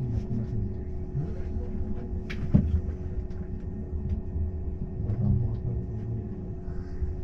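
City bus running, a steady low rumble of engine and road with a constant hum, and a single sharp knock about two and a half seconds in.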